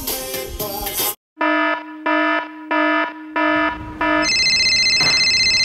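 Five short electronic beeps about two-thirds of a second apart, then a high electronic trilling ring that starts about four seconds in and carries on steadily.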